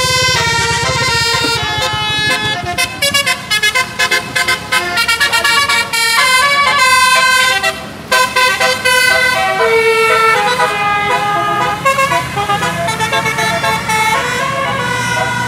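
A bus's telolet musical air horn playing a classic tune: many short notes in quick succession, then longer held notes. An engine runs underneath, most plainly near the end.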